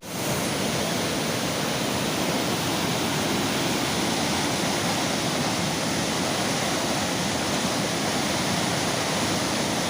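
Floodwater rushing in a steady, loud, unbroken roar of churning water.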